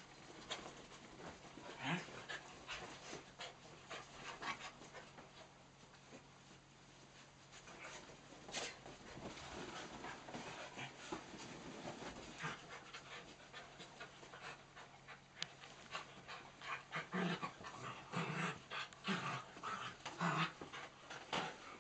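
Miniature dachshunds and cocker spaniels play-wrestling on a bed: dogs panting and snuffling, with many short scuffles and rustles of the duvet, busier near the end.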